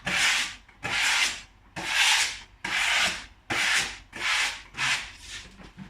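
A wallpaper smoothing tool swept repeatedly across freshly hung lining paper on a wall. It makes about eight rubbing swishes, roughly one every three-quarters of a second, getting fainter toward the end.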